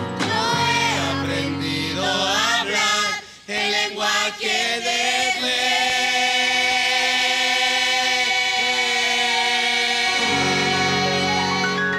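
A small group of singers performing a Spanish-language Christian praise song (alabanza), singing together through a microphone and holding one long note for several seconds. Near the end the voices stop and lower instrumental notes carry on.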